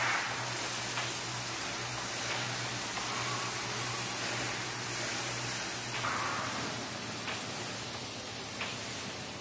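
Pressure-washer spray hissing steadily as water is blasted onto a semi truck's cab, with a low hum underneath that drops out about two-thirds of the way through.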